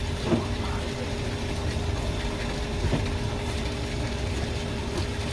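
Steady low mechanical hum with a constant tone, with a couple of faint brief sounds about a third of a second and three seconds in.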